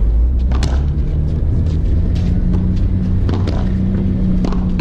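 Steady low engine-like drone that steps up in pitch a few times, with several sharp knocks scattered over it.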